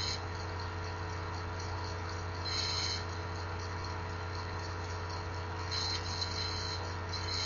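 Scissors snipping through a rubber pen ink sac: a few short, faint hissy cuts about two and a half, six and seven and a half seconds in, over a steady low electrical hum.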